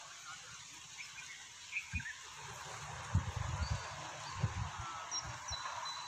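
Outdoor ambience with scattered short bird chirps over a steady hiss, broken by a few dull low thumps about two to four and a half seconds in.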